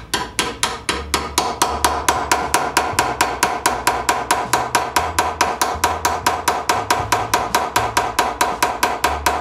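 Hammer striking a single-bevel cold chisel in quick, even blows, about five a second, as it chips across a steel bar held in a vise. From about a second in, each blow carries a metallic ring.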